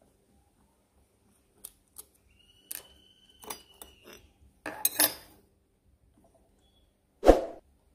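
Small metal parts clinking and tapping at the needle plate of an industrial single-needle sewing machine as its screws and the plate are taken off with a screwdriver and pliers. A short high ring sounds a few seconds in, and one louder knock comes near the end.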